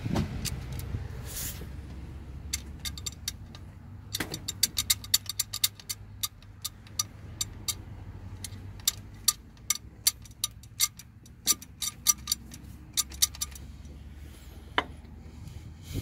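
Mitsubishi Fuso Canter 4P10 steel timing chain clicking and clacking against its sprockets and guides as it is pushed and shaken by hand, a run of sharp irregular clicks. The chain has slack in it where it should be tight, the sign of a loose, worn timing chain. A low steady hum runs underneath.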